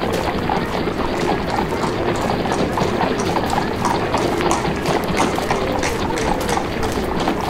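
Added street sound effect: horse hooves clip-clopping, with a steady murmur of crowd voices behind.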